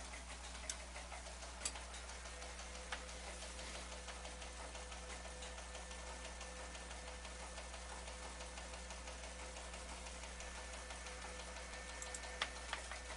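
Faint steady tone of about 500 Hz: the JT9 transmit audio from WSJT-X at 505 Hz. It sits over a low hum and hiss, with a few light clicks near the start and near the end.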